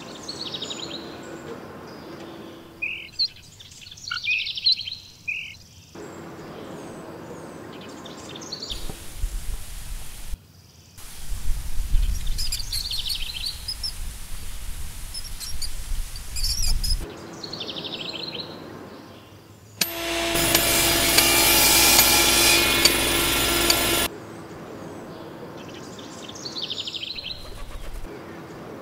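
Outdoor ambience with birds chirping and calling on and off. Midway there are stretches of low rumble, and in the second half a louder steady rushing noise lasts about four seconds.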